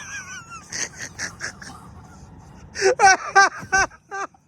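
A child's voice giving four short, high-pitched cries in quick succession about three seconds in, each falling in pitch, after a run of softer short noisy strokes.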